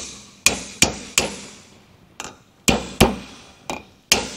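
Small steel hammer tapping the steel valve spring caps on a Holden 308 L34 cylinder head, about nine sharp metallic strikes in irregular groups, each ringing briefly. The taps are meant to free caps stuck on their collets so the collets can come out when the spring is compressed.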